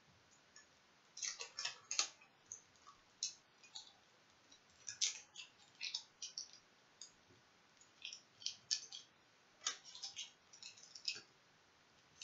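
Plastic shrink-wrap on a lip balm stick being picked and peeled off with fingernails: irregular small crackles and clicks coming in clusters.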